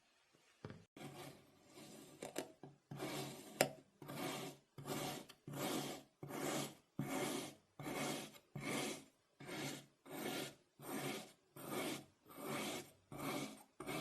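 Kinetic sand being cut with a blade in repeated rasping strokes. A few uneven strokes come in about a second in, then settle into a steady rhythm of roughly three strokes every two seconds.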